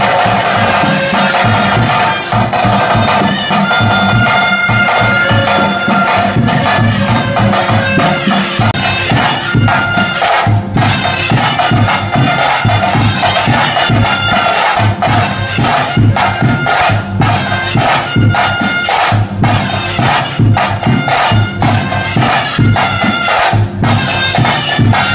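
Loud bhuta kola ritual music: a shrill double-reed pipe holding long melody notes over quick, steady drumming.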